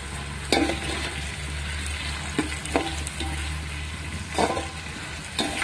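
Chopped onions and tomatoes sizzling in hot oil in a metal pot over a high flame. A slotted metal spoon stirring them scrapes and knocks against the pot about five times.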